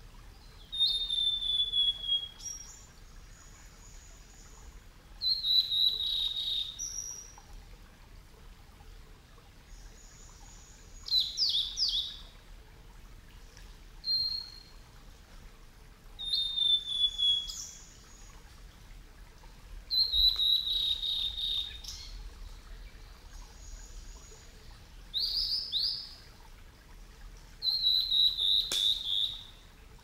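Male blue-and-white flycatcher singing: about eight short phrases of clear, sliding whistles ending in quick trills, each one to two seconds long, with pauses of a few seconds between them.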